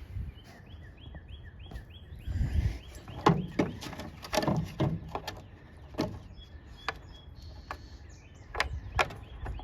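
A bird chirps a quick run of short high notes, then come scattered sharp clicks and knocks of small parts being handled.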